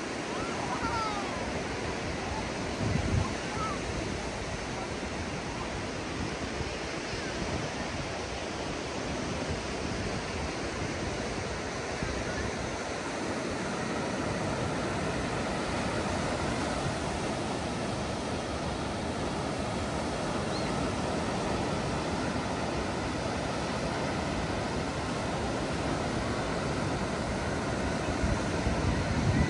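Ocean surf breaking on a sandy beach: a steady wash of wave noise, with a brief low thump about three seconds in.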